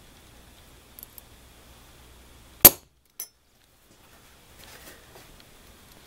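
Center punch struck on a small metal blank lying on an anvil, marking hole centres for drilling: one sharp metallic strike about two and a half seconds in, then a lighter tap about half a second later.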